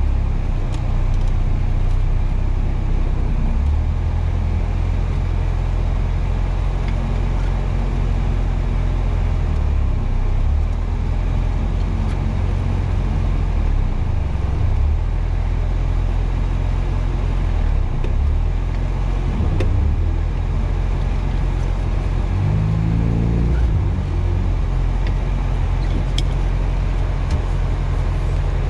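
VAZ 2105 rally car's four-cylinder engine running under load, its note shifting with throttle and gear changes, with a quick rise in revs about three-quarters of the way through.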